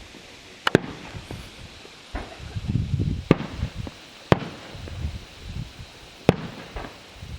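Fireworks going off: four loud, sharp bangs at uneven intervals of one to two seconds, with fainter pops and a low rumble between them.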